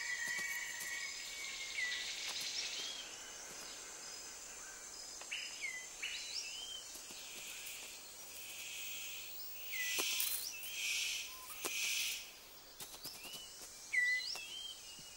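Tropical forest ambience: a steady high drone of insects under repeated short bird chirps that sweep up and then bend over. A few short hissy bursts come around ten to twelve seconds in.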